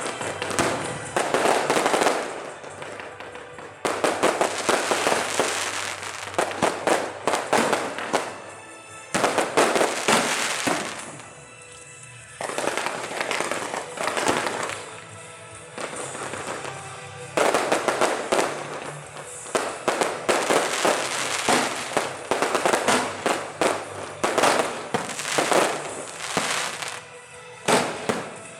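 Fireworks going off in rapid crackling volleys with short lulls between them, over background music.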